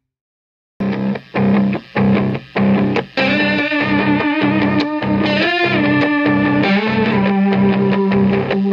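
Distorted electric guitar played through a Heavy Electronics Grind Fuzz and an EarthQuaker Devices Sea Machine chorus pedal. After a short silence it plays a few short, choppy fuzz chords, then held notes with a wavering chorus shimmer.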